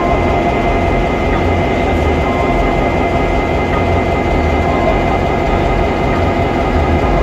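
X class diesel-electric locomotive's engine idling at a standstill: a steady deep rumble with a constant whine on top.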